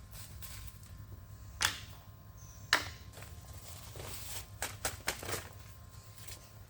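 A few sharp clicks and knocks of parts or tools being handled in a workshop, irregularly spaced with a quick cluster about two-thirds of the way through, over a low steady hum.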